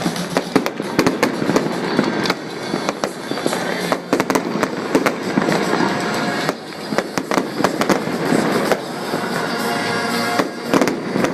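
Fireworks going off in quick succession: many sharp bangs and crackles, with music playing underneath.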